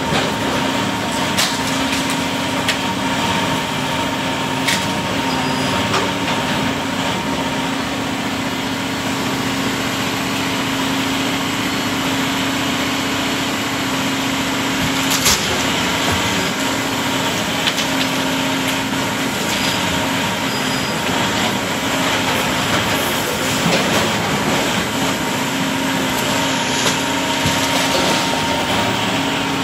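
Tracked demolition excavator's diesel engine running steadily at close range with a constant hum, while its grapple works through the broken timber of a wooden building, giving scattered knocks and cracks, the sharpest about halfway through.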